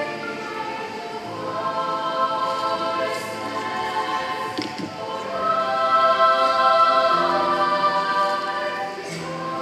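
Children's and teens' choir singing slow, sustained phrases in several voices, swelling louder a little past the middle. A brief knock sounds about halfway through.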